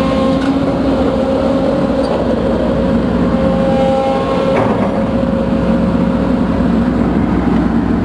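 Case CX210B excavator's diesel engine and hydraulic pump running steadily under load, with a constant whine over the engine hum. The machine is weak ('loyo'), a fault put down to its main hydraulic pump.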